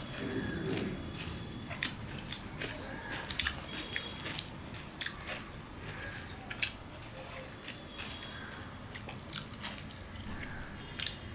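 Close-up eating sounds: a man chewing mouthfuls of tandoor roti with mutton curry, with sharp wet mouth clicks and smacks at irregular intervals, the loudest about three and a half seconds in.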